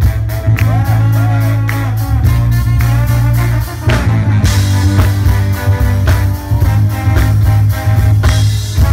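Live band music led by a trombone and saxophones playing a horn line together over drums and a heavy bass, loud throughout.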